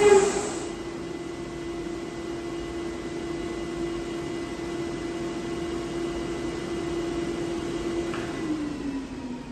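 UniteK Nice wide belt sander running with a steady machine hum, after a brief loud burst at the start. Near the end the hum falls in pitch and fades as the machine runs down.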